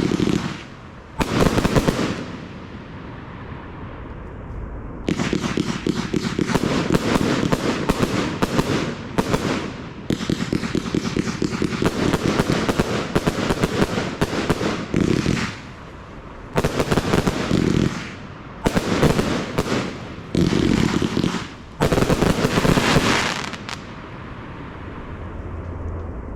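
Audacious compound firework cake firing: dense volleys of rapid crackling bangs in bursts of one to five seconds with short lulls between, the last burst dying out about 24 seconds in.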